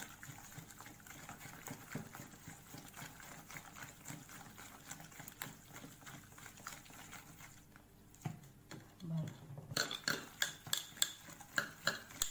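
Coarse chana dal vada batter being whipped by hand in one direction in a stainless steel bowl: soft wet squishing strokes with metallic clinks against the bowl. Near the end the strokes grow louder and sharper, about three a second.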